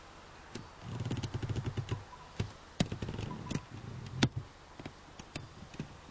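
Handling noise from a clunky old camera tripod: irregular clicks, knocks and low rattling as it is moved. A dense run of rattling starts about a second in, and there are two sharp, louder clicks later on.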